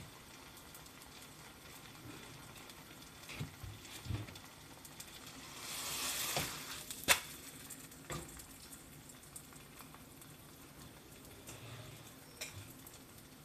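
Quiet kitchen handling sounds: scattered light clicks and knocks over a low steady background, with a short hiss about six seconds in and one sharp click just after seven seconds.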